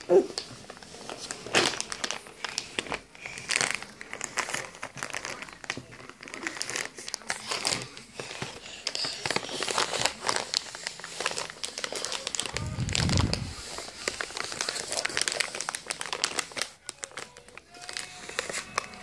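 Close, irregular rustling and crackling of hands and clothing rubbing against a phone's microphone as a toddler grabs and clambers at it. There is a short child's vocal sound at the start and a dull low bump about thirteen seconds in.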